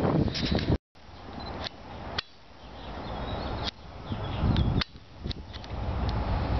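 The rumble of a freight train that has just passed stops abruptly about a second in. It gives way to wind gusting on the microphone, broken by several sharp clicks.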